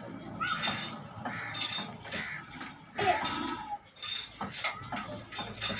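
Old single-cylinder 'New Shahi' diesel engine being turned over by hand at its flywheel before it fires, with irregular metallic clinks and knocks from the engine, about two a second, and short calls from the men pushing it.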